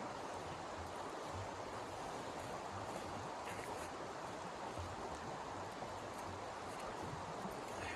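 Steady rushing noise at an even level, with faint, irregular low thumps underneath.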